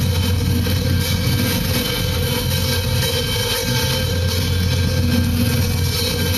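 Noise music: a steady, dense low drone like a machine or train, with a few held tones above it, continuing without a break.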